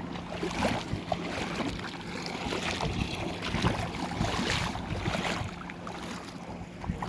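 Wind buffeting the microphone outdoors, uneven and gusty, over a faint steady low hum.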